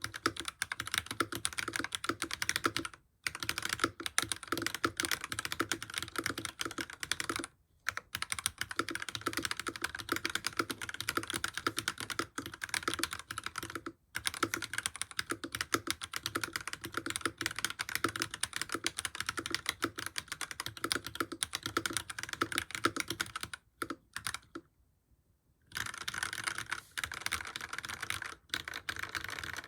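Fast, continuous typing on a modded FL Esports CMMK MK870 mechanical keyboard fitted with Akko linear switches, each keystroke a quick clack. It pauses briefly a few times and stops for about two seconds near the end before resuming.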